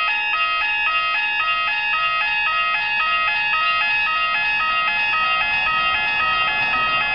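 Trackside warning horns for track workers sounding a loud, continuous two-tone warble that flips between a higher and a lower tone about four times a second, warning of an approaching train.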